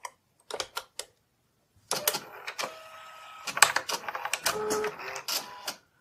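Canon Typestar 10-II thermal typewriter: a few key clicks, then about two seconds in the thermal print head runs along the line for about four seconds, a motorised whir with steady tones and rapid clicking, printing out the line typed in line mode.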